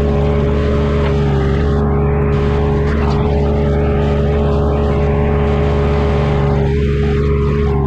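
Engine of a compact earthmoving machine running steadily at high revs, its pitch starting to drop right at the end.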